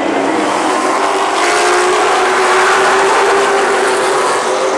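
A pack of late model stock cars racing past at speed, their V8 engines running hard in a steady loud blend of engine noise that grows louder about a second and a half in.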